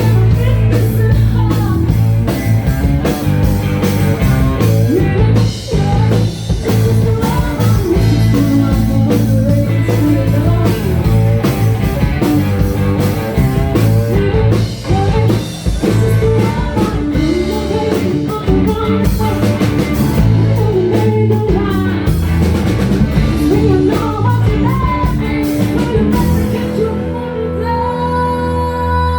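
Rock band playing live: drum kit, bass and electric guitar, with a singer's voice. Near the end the drums drop out, leaving held guitar notes ringing.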